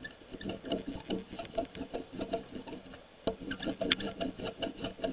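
Brayer rolled back and forth through water-based printing ink on a plastic tray, giving a rapid tacky crackle like Velcro coming apart, with a brief lull about three seconds in. This sticky sound is the sign that the ink is spread thin and even and ready for printing.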